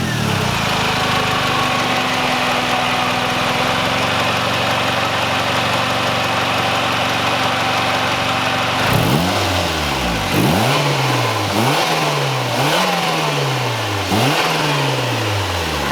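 Turbocharged 2.0-litre four-cylinder of a 2002 Mazdaspeed Protege5, breathing through a straight-pipe turbo exhaust, idling steadily. About nine seconds in it is revved in five quick throttle blips, each rising sharply and falling back more slowly.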